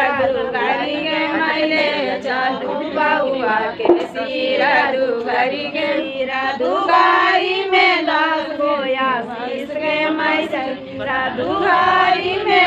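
A group of women singing a traditional Bihari wedding folk song together, several voices overlapping.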